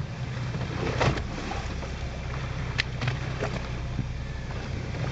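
A fishing boat's engine hums steadily and low, under the rush of wind and sea water along the hull. Two brief sharp sounds come through about one and three seconds in.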